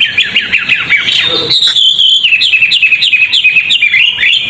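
A songbird singing a loud, fast song of rapidly repeated falling whistled notes, several a second, with a brief held note partway through. This is a champion-bird song recording played as a 'masteran' to tutor caged birds toward a faster song.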